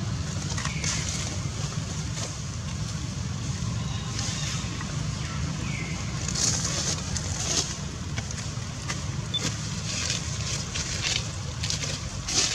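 Steady low outdoor rumble with patches of high hiss that swell about halfway through and again near the end.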